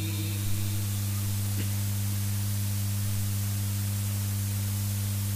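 Steady low electrical mains hum with hiss from the public-address sound system, with a faint click about half a second in.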